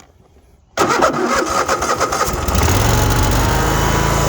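Cub Cadet RZT 54 zero-turn mower's 24-horsepower engine being started: the starter cranks it for about a second and a half, then it catches, rises in pitch and settles into a steady, smooth run.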